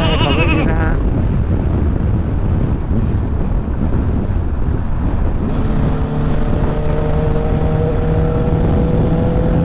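Honda CBR650F inline-four engine running under way, mixed with heavy storm wind buffeting the microphone. About halfway through, a steady engine note comes in and rises slowly as the bike gathers speed.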